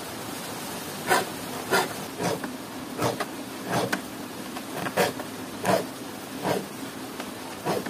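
A metal file rasping between the teeth of a rusty hand saw to sharpen them: short scraping strokes at a steady pace, about every two-thirds of a second.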